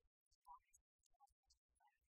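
Near silence, broken only by faint, choppy fragments of a man's voice reading aloud at a microphone.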